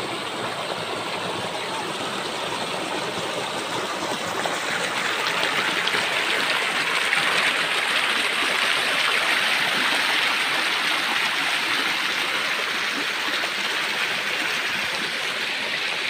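Shallow stream rushing over sloping rock slabs in small cascades: a steady splashing rush of water that grows louder about five seconds in.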